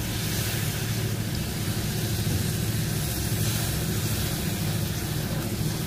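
Water added to hot masala and oil in a kadai, hissing and sizzling with a steady rushing noise as it heats up.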